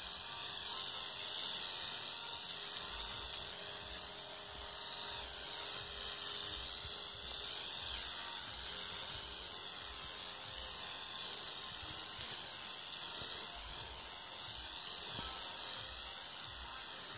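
Backpack crop sprayer running steadily with a small-motor buzz while the lance sprays the rose bushes.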